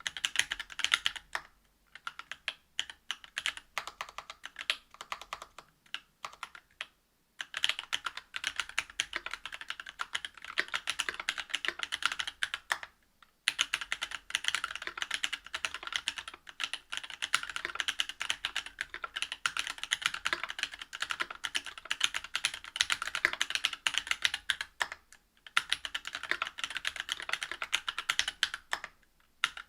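Typing on a Whale 75 mechanical keyboard with a brass plate, stock Cannonkeys Lilac Linear 62g switches and GMK keycaps: fast, continuous key clacks, broken by a few short pauses.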